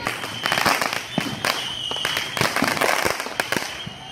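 Fireworks going off: a rapid, irregular run of crackling pops and bangs. A steady high whistle sounds through the first half and returns briefly near the end.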